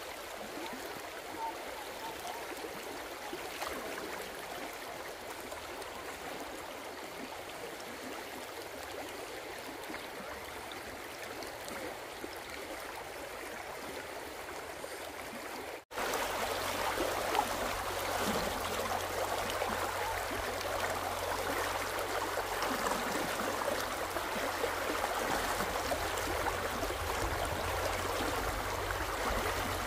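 Flowing stream water, a steady rushing sound. About sixteen seconds in, it drops out for an instant and comes back louder, with more low rumble.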